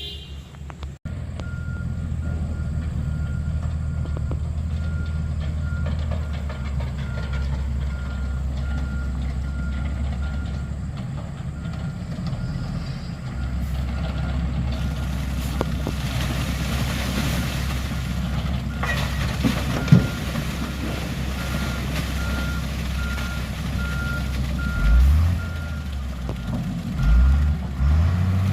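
Dump truck engine running while its reversing alarm beeps at an even rate as it backs up. A sharp knock comes about two-thirds of the way through, and the engine revs up twice near the end.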